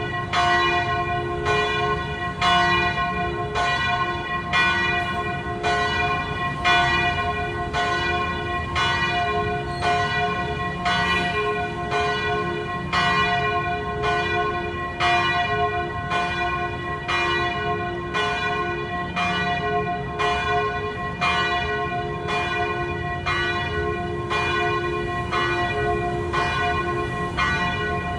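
Church bells ringing in a steady, continuous peal, struck about one and a half times a second, each stroke ringing on under the next.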